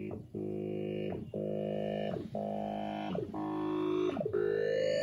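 Oscilloscope music played through the clock's small built-in speakers: electronic tones each held about a second, with a quick falling sweep between them, and a rising glide near the end.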